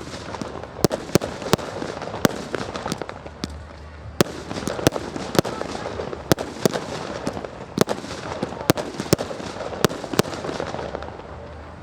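Firework display: aerial shells bursting in quick, irregular succession, about two sharp bangs a second over a continuous background rumble.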